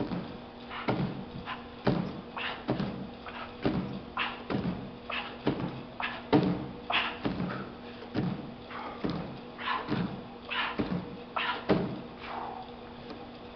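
Hands slapping down on a hard gym floor and a step platform in a quick series of plyometric push-ups, about two thuds a second, stopping near the end.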